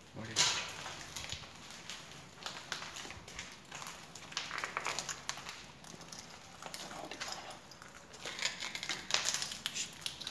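Footsteps crunching and scuffing at an uneven pace, with irregular clicks and crackles underfoot.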